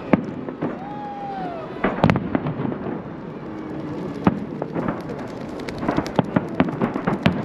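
Fireworks salute bursting overhead: an irregular run of sharp bangs and pops, the loudest cluster about two seconds in.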